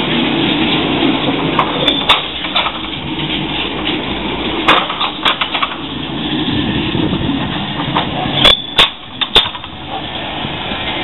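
A Hermelijn low-floor electric tram passing close by on street track, with a steady rumble of wheels on rail. Over it come several sharp metallic clicks and knocks, a couple about two seconds in, a few around five seconds, and a cluster near nine seconds.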